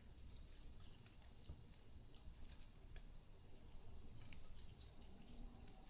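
Near silence, with faint scattered small clicks and taps from handling small parts.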